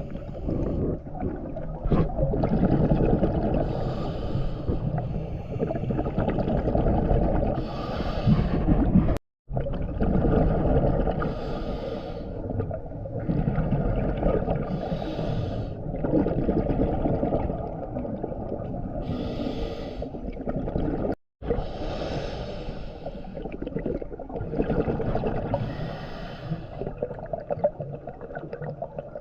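Scuba regulator breathing underwater: a hissing inhale every three to four seconds, each followed by a rumbling rush of exhaled bubbles. The sound cuts out suddenly twice.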